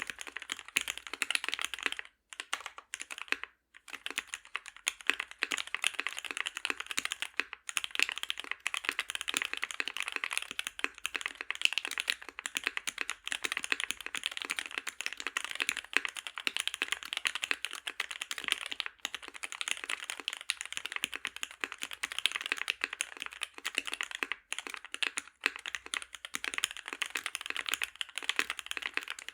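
Continuous fast typing on a custom mechanical keyboard with lubed and filmed C3 Tangerine linear switches on a copper plate, with CRP keycaps: a dense stream of key clacks, pausing briefly twice early on.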